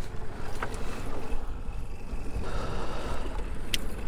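Fishing boat's motor running steadily on choppy open water, with wind on the microphone, and one sharp click near the end.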